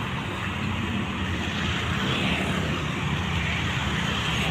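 Bus engine running steadily with a deep exhaust drone, growing slightly louder.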